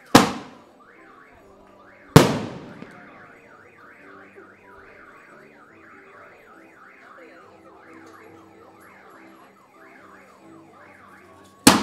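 Three loud single blasts of aerial thunder bombs, one right at the start, one about two seconds in and one near the end, each dying away in a rumbling echo. Between them an alarm wails steadily in quick rising-and-falling sweeps.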